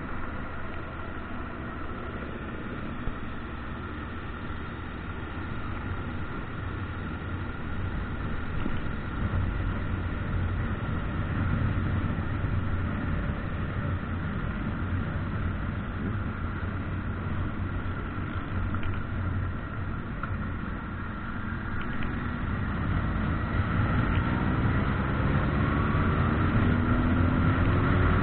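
Motorcycle engine running at road speed with a steady low rumble of wind. Its note rises as it accelerates from about three-quarters of the way in.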